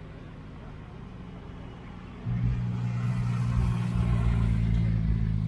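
A Porsche 911's flat-six engine running at low, steady revs as the car rolls slowly past close by; its note jumps louder about two seconds in and stays level.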